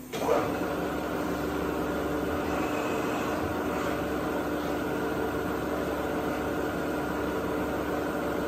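An electric machine motor starts abruptly, rises to speed within a fraction of a second, and runs at a steady speed with a loud, even whir made of several fixed tones.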